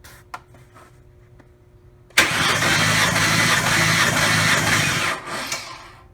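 The supercharged 4.0-litre SOHC V6 of a Ford Explorer starting suddenly about two seconds in, running for about three seconds, then shutting off near the end.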